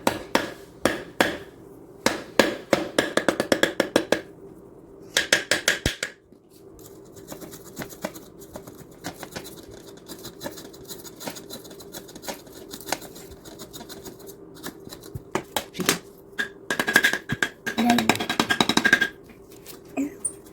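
Small hammer from a dig kit tapping a clay block in quick runs of sharp taps, several a second, with quieter scraping and chipping between the runs.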